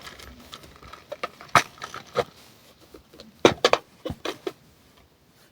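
Small items and packaging being handled: a scattered series of sharp clicks and light crackles, with a cluster about three and a half seconds in, dying away near the end.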